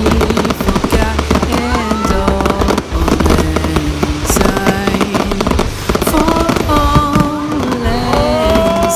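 Fireworks crackling and popping densely, mixed with background music of held notes over a low bass.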